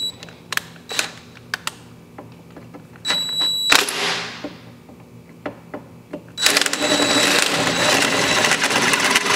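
Cordless drill with a 13/64 bit drilling a metal plate: a short burst of the drill about three seconds in, then from about two-thirds of the way through it runs steadily, cutting into the metal, with a high whine over the cutting noise. A few small clicks come before it.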